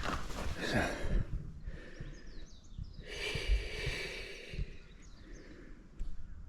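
Footsteps on a forest path over outdoor ambience, with a few short bird chirps about two and a half seconds in.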